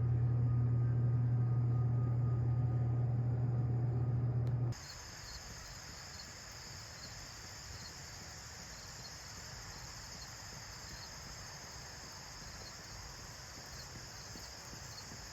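A steady low hum that cuts off abruptly about four and a half seconds in, followed by crickets chirring steadily with a faint regular pulse.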